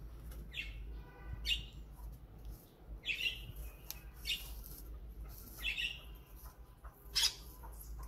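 Parakeets in an aviary calling: short high chirps about every second or so, with one fuller, stacked call about a second in.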